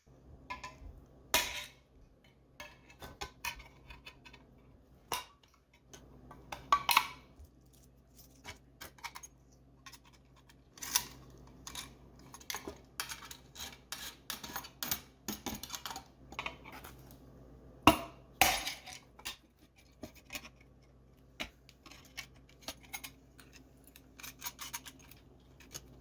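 Hand tools and metal wiring parts being handled: irregular sharp clicks and clinks, the loudest about a second and a half in and around eighteen seconds in, over a faint steady low hum.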